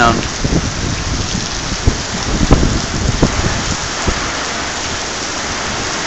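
Heavy rain pouring down onto pavement: a steady dense hiss, with a few scattered low thuds close by.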